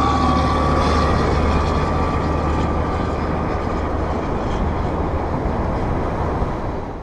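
Loaded articulated dump truck hauling sand drives away after passing close by. Its diesel engine gives a steady low drone, with a whine near the start that fades, and the whole sound slowly dies down as the truck recedes.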